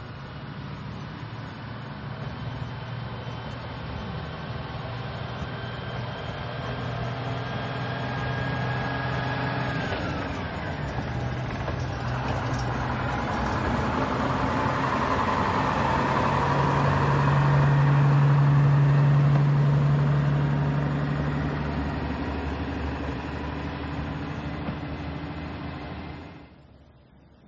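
Diesel engine of a vintage metre-gauge railcar, an engine salvaged from a US Sherman tank, running as the railcar approaches and passes close by. It grows louder to a peak about two-thirds of the way through, fades somewhat, and cuts off abruptly near the end.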